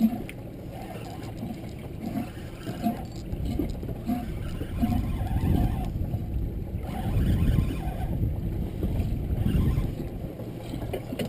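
Water lapping and slapping against a small fishing boat's hull in a light chop, with an irregular low rumble of wind on the microphone.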